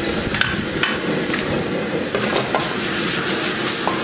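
Beef, onion and ají amarillo sizzling in a hot wok as they are stir-fried, with several sharp clicks and knocks against the pan as the food is tossed.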